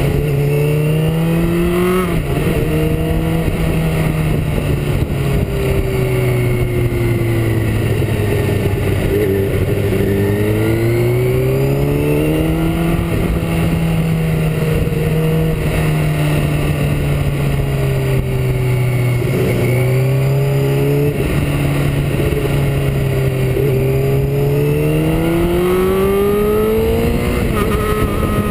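Motorcycle engine running under way, its note sinking slowly and then climbing again twice, about halfway through and near the end, as the rider eases off and accelerates along the bends. Steady wind rush on the microphone lies under it.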